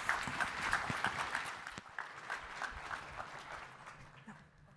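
Audience applauding at the end of a talk. It is loudest at first and dies away over the last couple of seconds.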